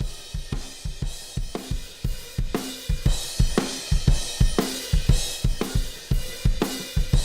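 Recorded live acoustic drum kit playing a steady groove, with kick drum, snare, hi-hat and cymbals, played back through the Empirical Labs Arousor compression plugin. The cymbals get louder about three seconds in.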